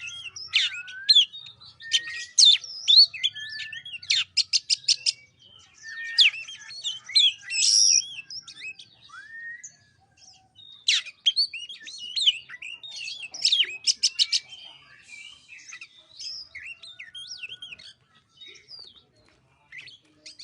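Oriental magpie-robin singing a varied song of clear whistles, slurred up-and-down notes and rapid chattering trills, with a short pause about ten seconds in.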